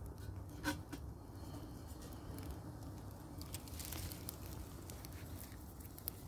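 Twigs burning in a small titanium wood-burning camp stove, crackling with a few sharp pops over a low steady rumble.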